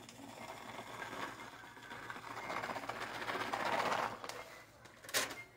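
Plastic bag of shredded cheddar cheese rustling and crinkling as it is shaken out over a metal pan, loudest about three to four seconds in. A single sharp click near the end.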